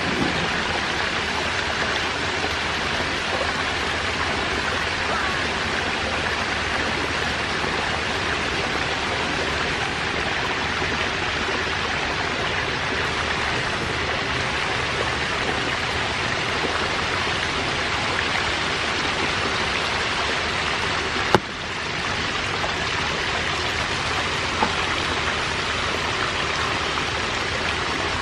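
Steady rush of splashing water in a shallow tank crammed with baby catfish, the fry churning the surface and water running in from an inlet pipe. A single sharp click comes about 21 seconds in.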